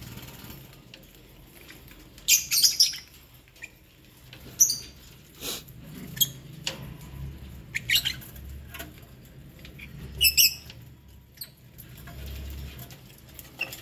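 A flock of lovebirds chirping: short, sharp, high calls every second or two, with a quick cluster a couple of seconds in and another near the end.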